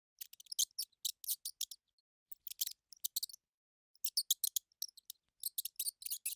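Rapid high-pitched chirps and clicks in short clusters, with brief silences between them, of the kind played to attract a cat's attention.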